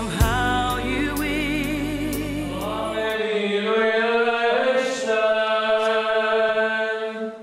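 Background song with a vibrato singing voice over a bass line, with a brief click just after the start. About three seconds in it gives way to a church choir singing held notes of Orthodox liturgical chant.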